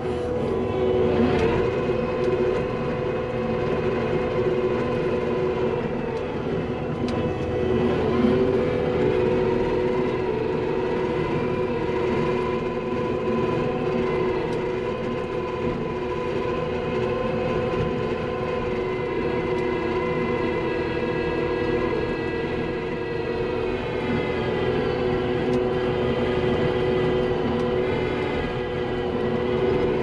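Skid steer running its hydraulic power rake attachment, heard from inside the cab: a steady engine hum with a whine over it, sagging slightly in pitch now and then as the machine takes load.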